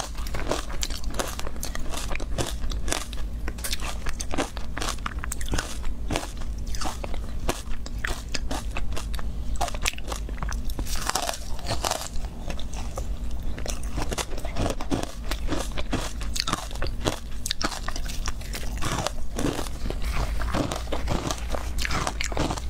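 Close-miked biting and chewing of soft, powdery ice coated in matcha powder: dense, rapid crunching crackles that keep going throughout.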